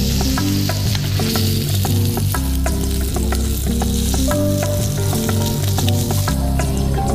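Bacon sizzling steadily in a pan, under background music with held bass notes that change every half second or so.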